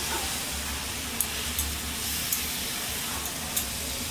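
Turmeric mixture in ghee being stirred in a hot pan: a steady sizzling hiss, with a few light clicks of the spoon against the pan.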